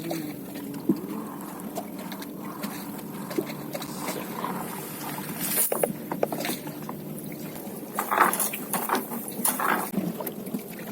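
A small boat's engine runs steadily in the background, with water splashing and a sharp knock midway; the splashing is loudest about eight seconds in.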